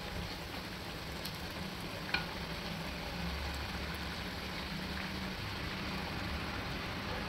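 Oil sizzling steadily as square pieces of dough deep-fry in a pan, with one short click about two seconds in.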